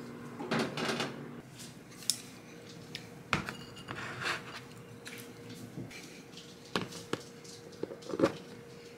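Ceramic dishes set down on a plastic tray, giving a series of separate clinks and knocks. Near the end comes the loudest snap, as the lid of a plastic rice container is pried open. A faint steady hum runs underneath.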